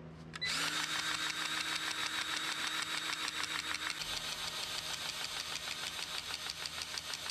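Cordless battery-powered grease gun running, its motor pumping with a rapid, even pulse as grease is forced into an axle grease fitting. It starts about half a second in after a couple of small clicks.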